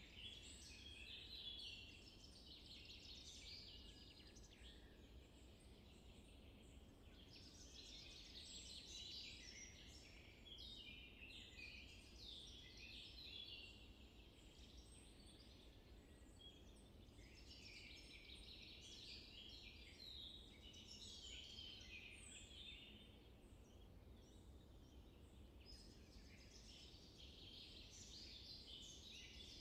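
Faint woodland ambience: small birds chirping and twittering in spells of a few seconds, over a faint low rumble.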